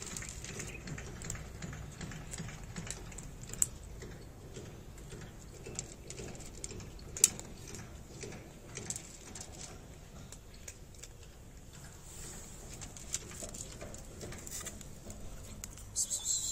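A cat crunching dry kibble: scattered crisp clicks and crunches, two sharper ones at about a quarter and halfway through. A brief louder noise comes near the end.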